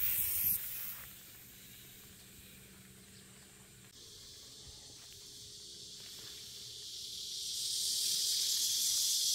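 Hissing spray from a hose-fed crop sprayer wand, loudest in the first second and coming back about four seconds in. Near the end a steady high insect chorus rises and takes over.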